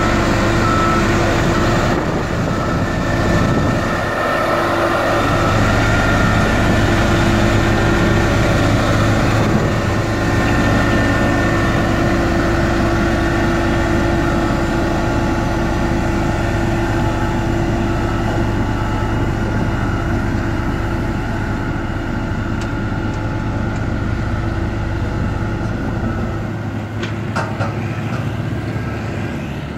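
SDLG RS8200 single-drum road roller's diesel engine running steadily with a constant hum as the roller drives over the road base, growing a little fainter near the end as it moves away.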